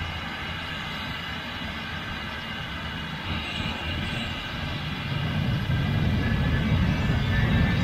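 Jet airliner engines at taxi power: a steady whine over a low rumble, the rumble growing louder from about five seconds in.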